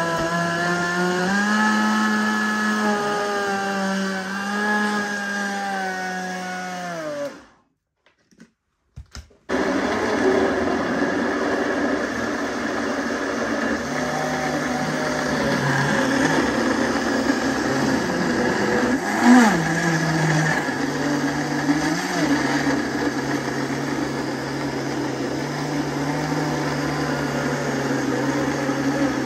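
Multifunction countertop blender motor running under load, grinding chunks of fruit with no added liquid into a thick juice. The motor winds down and stops about seven seconds in, with a couple of clicks in the short silence, then starts again and runs steadily, with a brief knock about nineteen seconds in.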